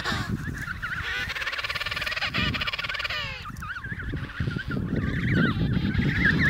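Emperor penguins calling. A long, pulsing call starts about a second in and lasts about two seconds, then a run of short, wavering whistles follows.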